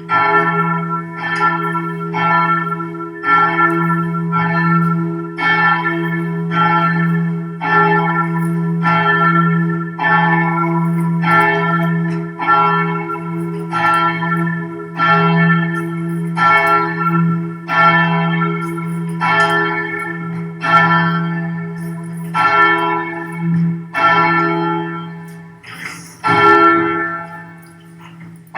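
A church bell struck rapidly and evenly, a little more than once a second, its low hum ringing on between strokes; the strokes pause briefly near the end, then resume.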